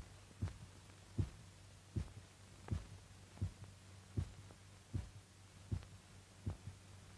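Slow, regular heartbeat thumps, about 80 a minute, over a low steady hum: the revived dog's heart beating on its own.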